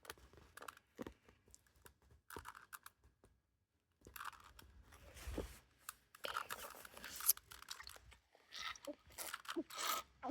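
Plastic Rubik's cube being turned layer by layer: irregular rapid clicks and scrapes in uneven bursts, with a brief total dropout about three and a half seconds in.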